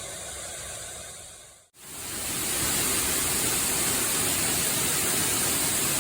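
Waterfall rushing as a steady roar of falling water. It fades out a little under two seconds in, then returns louder and fuller.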